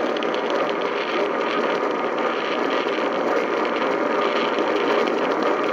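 Steady hiss of radio static from a broadcast receiver, even and unbroken.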